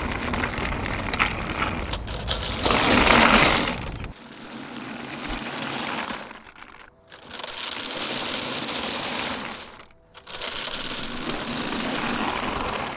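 DJI RoboMaster S1 robot rolling over asphalt while towing a trailer on small furniture-mover caster rollers: a gritty rattling roll with many small clicks, loudest about three seconds in. The sound drops out briefly twice, near seven and ten seconds.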